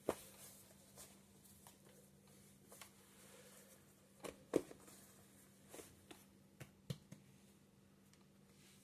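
Sourdough being handled: a scattering of soft, brief squishes and taps, the loudest about halfway through, over a faint steady hum.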